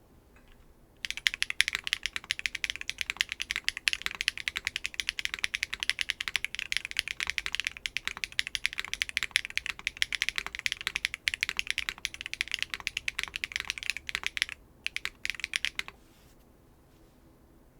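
Custom mechanical keyboard with Keygeek B1 linear switches, a carbon fiber plate, no foam and GMK keycaps, being typed on quickly: high-pitched, sharp, clacky keystrokes. The typing starts about a second in, pauses briefly near the end for one last short flurry, then stops for the final couple of seconds.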